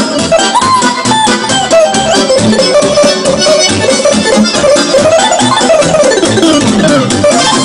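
Electronic keyboard played live: a fast, ornamented lead melody with smooth rising and falling sweeps over a steady beat.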